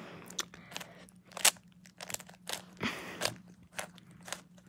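Plastic 3x3 Rubik's cube being twisted by hand: a run of short, sharp clicks and clacks at irregular intervals as its layers are turned one after another.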